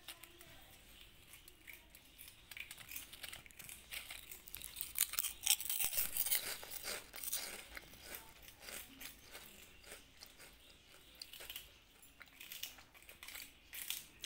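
Kittens chewing a crunchy Kurkure snack: many quick, crisp crunches and bites, busiest and loudest in the middle and thinning out toward the end.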